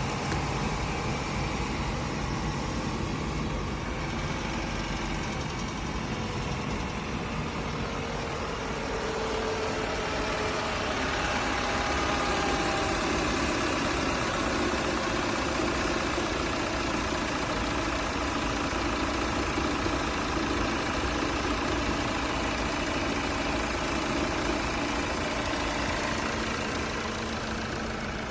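Audi A5 engine idling steadily after its engine-noise repair has been completed, growing slightly louder about ten seconds in.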